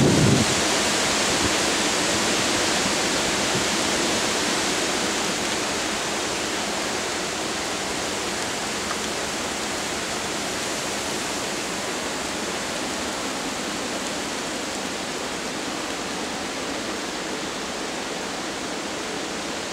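Hurricane-force storm wind blowing through the trees, a steady noise that eases off slightly over time. A gust buffets the microphone right at the start.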